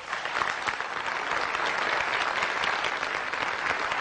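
Audience applauding: a dense patter of many hands clapping that builds over the first second, then holds steady.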